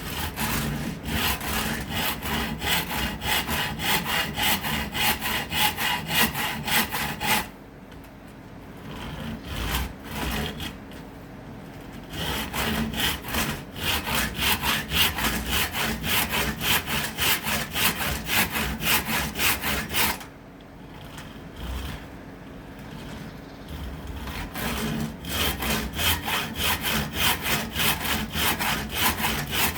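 Hand saw cutting acacia wood in quick back-and-forth strokes, about three a second, in three bouts with short pauses between.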